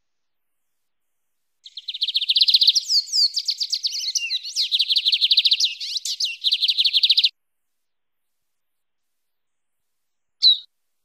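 Lined seedeater (bigodinho) singing its wild-type 'mateiro' song. It is a fast run of rapidly repeated high notes with a few sliding notes in the middle, lasting about five and a half seconds. A single short call follows near the end.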